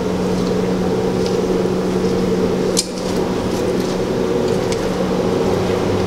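A fan-type machine's steady low hum, with faint footsteps on a brick floor and a single sharp click about three seconds in.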